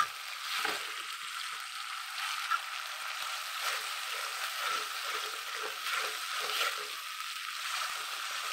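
Onions and ground spice paste frying in oil in an aluminium kadai, a steady sizzle, with a metal spoon scraping and knocking against the pan as the masala is stirred.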